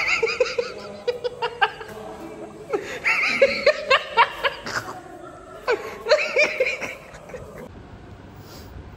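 Men laughing in three bouts of short, pulsing bursts, the last dying down near the end.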